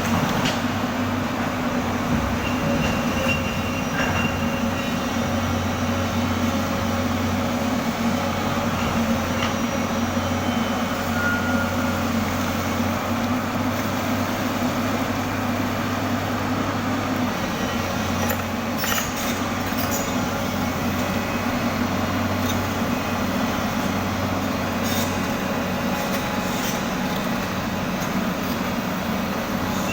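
Excavator's diesel engine running steadily, with a few sharp clicks or clanks about two-thirds of the way in.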